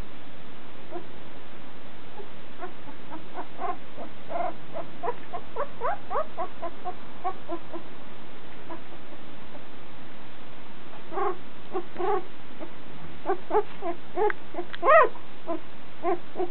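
Newborn Irish Terrier puppy, about a week and a half old, giving short high squeaks and whimpers in quick runs, with a gap of a few seconds in the middle and the loudest squeaks near the end. A steady hiss lies underneath.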